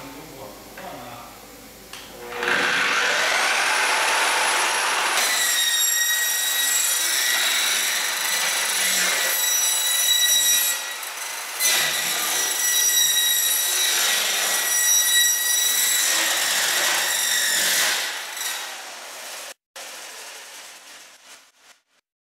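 AGP CS320 1800 W metal-cutting circular saw with a 320 mm blade starting up, its whine rising as the motor spins up, then cutting through a metal-skinned foam-core sandwich panel on its guide rail with a steady high ringing from the blade for about thirteen seconds. The sound drops away near the end as the cut finishes.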